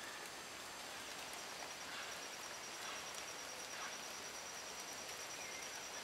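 Faint rainforest ambience: a steady hiss with a high, rapidly pulsing insect call coming in about a second in.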